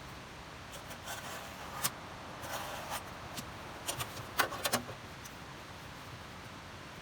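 A few faint clicks, taps and scrapes of things being handled, the sharpest cluster about four and a half seconds in.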